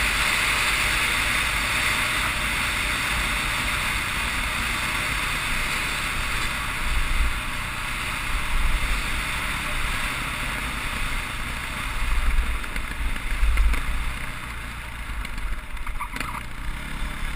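Dirt bike running along a gravel road, its engine under a steady rush of wind noise on the camera's microphone, with irregular low buffeting from about seven seconds in.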